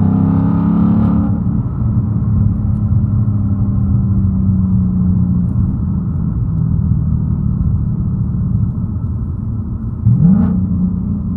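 2019 Ford Mustang Bullitt's 5.0 V8 running steadily through its factory exhaust with the resonators cut out, heard from inside the cabin with a window cracked. About ten seconds in the revs jump in a quick blip, rising sharply in pitch.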